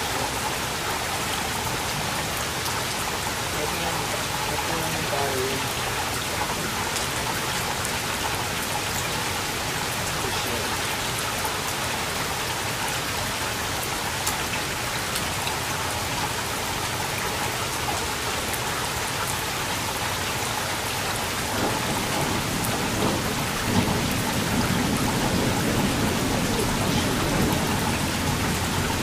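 Steady rain falling during a thunderstorm. About three-quarters of the way through, a low rumble of thunder sets in and grows louder, with one sharp crack early in it.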